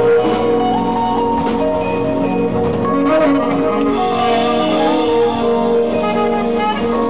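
Live jazz band playing: saxophone, electric guitar and keyboard over a drum kit, with melody lines held and moving over a steady groove.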